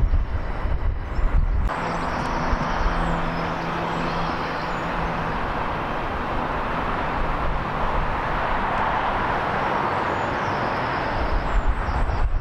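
A vehicle passing with a steady rushing noise and, for a few seconds, a low hum of several pitches. Wind buffets the microphone at the start and again near the end.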